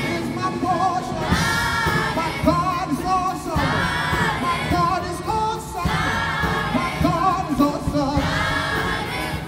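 Children's choir singing a gospel song, its phrases rising and falling about every two seconds.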